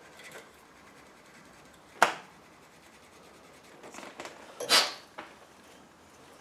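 Small handling noises from hands working on a motorcycle's handlebar throttle grip and switch housing: a sharp click about two seconds in, a few faint ticks, then a short scraping rustle just before five seconds.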